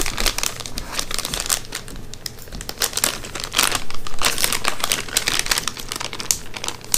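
Plastic soft-bait bag crinkling and rustling in irregular bursts as it is handled and opened and the worms are pulled out.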